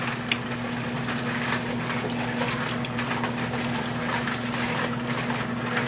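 Water sloshing and splashing as a plastic gold pan of concentrates is swirled and dipped in a tub of water, with many small splashy ticks. A steady low hum runs underneath.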